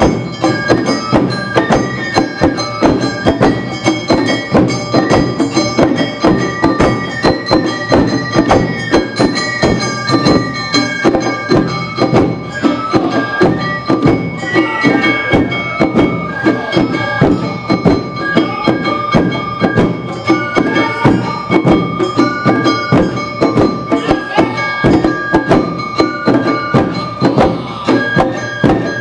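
Awa Odori festival accompaniment, a live ensemble of flutes, drums and small gongs, playing its brisk two-beat rhythm. High held flute notes sit over a steady, driving beat of drum and gong strikes.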